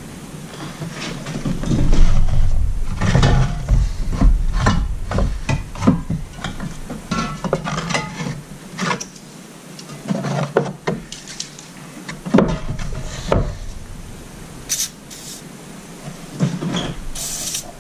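Tools, parts and cans being handled on a cluttered workbench: irregular knocks, clatter and rubbing, with a brief hiss near the end.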